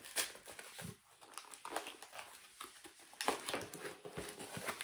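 Packaging of a parcel of vinyl records being handled and unpacked: irregular rustles, scrapes and light knocks.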